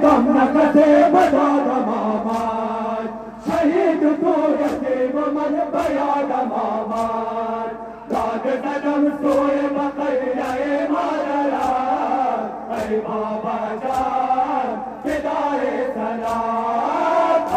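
Men's voices chanting a Shia mourning lament (noha) in a slow melodic line, over a regular beat of sharp strikes a little faster than one a second.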